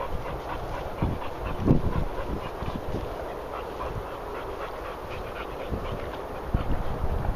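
A pack of dogs on a walk, trotting and sniffing through long grass and bracken, with the walker's footsteps and handling of the phone giving soft low thuds and rustling; one brief louder thud about two seconds in.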